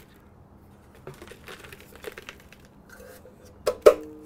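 Light scraping and rustling of handling on a table, then two sharp knocks near the end as a steel pellet-grill ash catch box is tipped and tapped out over a paper plate, the metal ringing briefly after the knocks.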